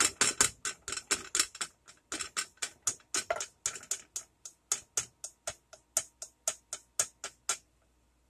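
A rapid, even run of sharp clicks, about four a second, stopping shortly before the end.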